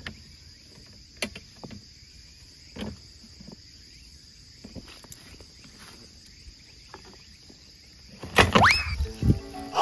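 Insects trilling steadily in grass, with a few faint clicks. Near the end comes a loud sound with a quick upward-gliding whistle-like tone.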